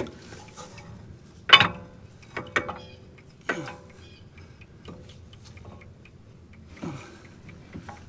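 Metal knocks, clanks and small clicks as a new brake caliper is pushed and wiggled by hand onto the brake pads and rotor. The loudest is a clank about a second and a half in that rings briefly. The caliper is too tight to slide on because its pistons stand out of their bores.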